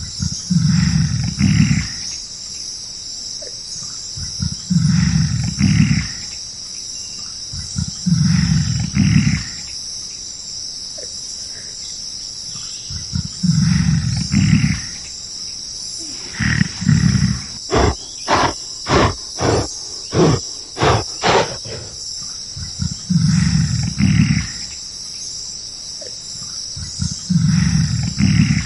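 A large animal giving deep roaring calls, each about a second long, repeating every three to four seconds over a steady high chorus of insects. Near the middle a quick run of about eight short, sharp strokes comes at roughly two a second.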